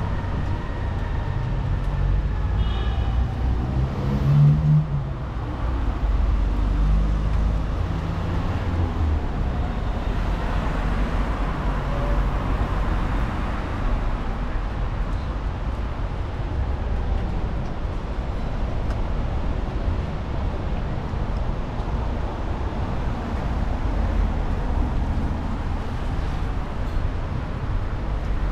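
Street ambience of city traffic: cars passing over a steady low rumble.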